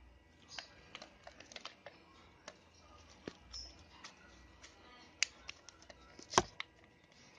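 Light plastic clicks and taps from hands handling a yellow cordless screwdriver, wrapping a strap around its body and fitting a battery cell to it. The clicks are scattered and irregular, with a sharper knock about six seconds in.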